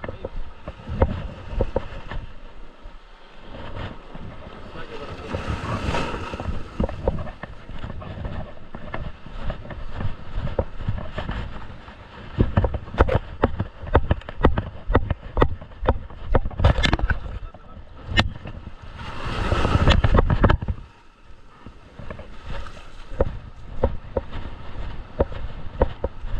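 Surf washing in on a sandy beach, swelling up twice, with many scattered knocks and bumps.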